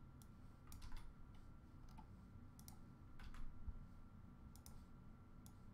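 Faint, scattered clicks of a computer mouse and keyboard, about a dozen spread irregularly over several seconds, over a quiet room.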